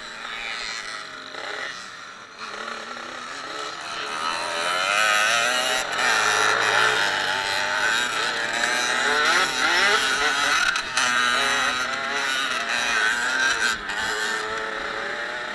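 Dirt bike engine heard from the bike itself, revving up and down again and again as it rides round a motocross track. It gets louder about a quarter of the way in.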